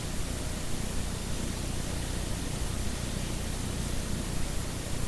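Steady static hiss, even and unbroken.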